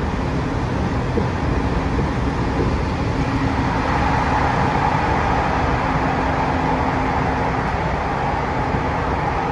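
Toei 6500 series subway train heard from inside the car, running at speed through a tunnel: a steady loud rumble of wheels on rail with a steady hum underneath. From about four seconds in, a higher rushing band of rail noise swells up.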